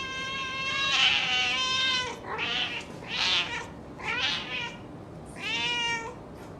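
A cat meowing over and over, about six separate meows in a row, several of them falling in pitch at the end.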